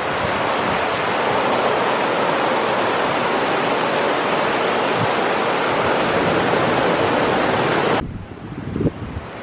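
Heavy rain and wind: a loud, steady rushing noise that drops off suddenly to a quieter hiss near the end.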